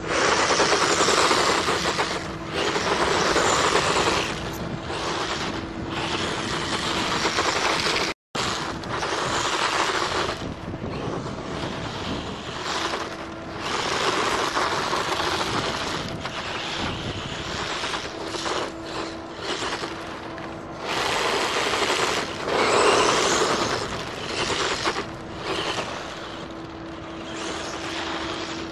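Tamiya Hornet radio-controlled buggy driving on a gritty path: the whine of its small brushed electric motor and the hiss of its tyres on grit, swelling and fading again and again as it speeds up, slows and turns. The sound breaks off briefly about eight seconds in.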